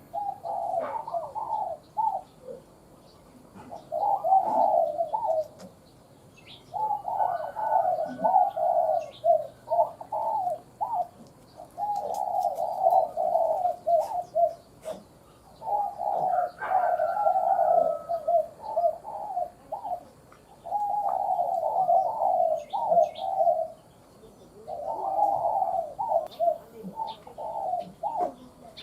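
Spotted dove cooing phrase after phrase, about seven low cooing calls with a short pause between each. Faint high chirps of other small birds come in here and there.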